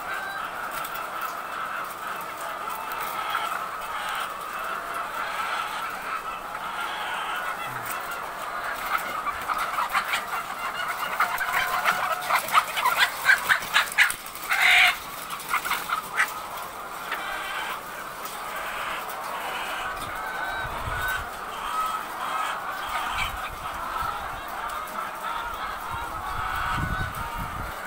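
Flock of caged laying hens clucking and calling continuously. About ten seconds in there is a louder, agitated stretch of rapid sharp squawks, peaking with one loud call near the middle, as a hen is caught and handled out of its cage.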